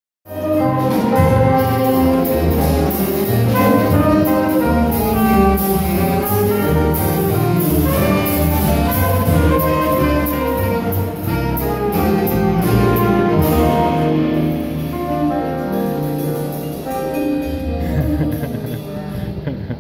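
Instrumental music played by a small live ensemble, a full, continuous sound that eases off a little toward the end.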